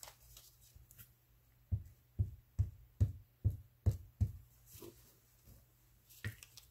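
Glue stick rubbed in quick strokes over a paper scrap on an old book page: about seven soft, dull thumps roughly half a second apart, and a single thump near the end.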